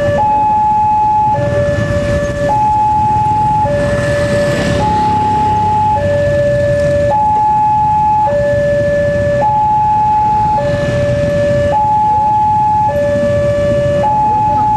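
Railway level-crossing alarm of a Wantech crossing gate sounding a two-tone high–low warning, each tone held for a little over a second and alternating without a break, signalling that a train is approaching and the barrier is down. Under it, the low running of waiting motorcycles' engines.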